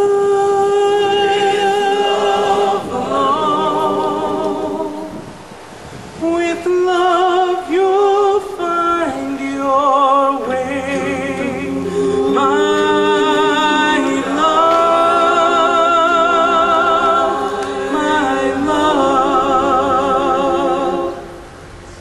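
All-male a cappella group singing wordless sustained harmony with vibrato, several voices holding chords that change every second or two. The singing dips briefly about five seconds in and stops about a second before the end.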